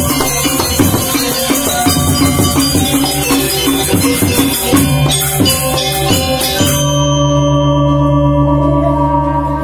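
Balinese gamelan gong ensemble playing a fast, dense passage on bronze metallophones and drums. About two-thirds of the way through the striking stops and the bronze keys and gong ring on.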